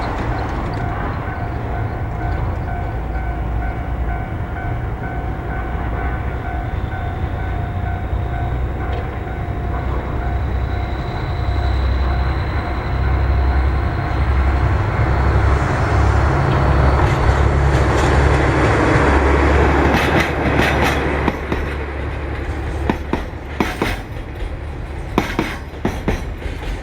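Diesel locomotive DD501 hauling a freight train: a heavy engine rumble that grows louder as it comes by. In the last few seconds it gives way to the sharp clatter of the freight wagons' wheels over the rail joints.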